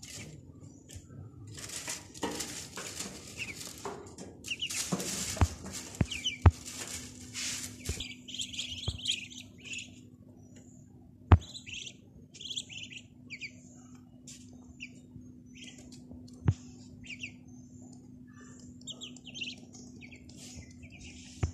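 Ducklings peeping in short, high calls, with rustling and scuffling in the first part and several sharp clicks, the loudest about 11 and 16 seconds in. A faint steady hum runs underneath.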